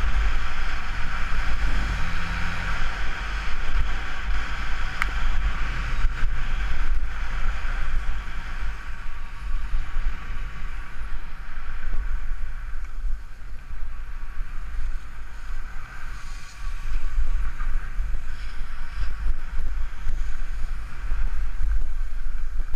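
Wind buffeting a helmet-mounted GoPro's microphone during a fast ski descent, with the steady hiss and scrape of skis running over packed snow. The noise rises and falls with speed and turns, easing for a few seconds midway.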